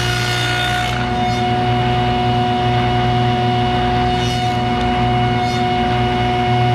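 Jet JWTS-10 table saw running with a stacked dado blade: a steady, loud motor hum, with a few faint, brief hisses as the workpiece is pushed across the dado stack.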